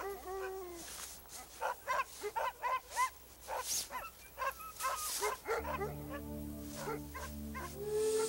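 Dogs barking repeatedly in short, high yelping barks. About five and a half seconds in, soft music with long held notes comes in underneath.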